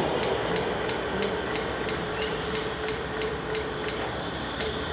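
Rapid, even metallic ticking, about five a second, over the steady hum of a stopped freight train.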